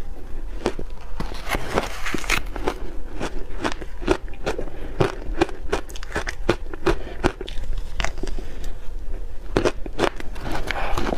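Shaved ice heavily coated in sweet potato powder being chewed, a steady run of crisp crunches about three a second. Near the end a spoon scrapes and scoops into the packed ice.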